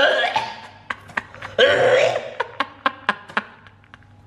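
A man's strained vocal outbursts without words, one at the start and another a little before two seconds in, with a run of short sharp clicks between and after them.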